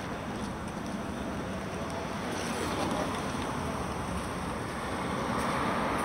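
Steady wind rush over a bicycle-mounted camera with tyre and road noise from riding along a city street, and a car passing close alongside partway through.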